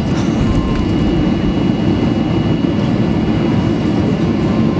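Steady cabin noise inside a Boeing 737-800 taxiing: the low rumble of its CFM56 turbofan engines and airframe, even in level throughout, with a faint thin tone above it.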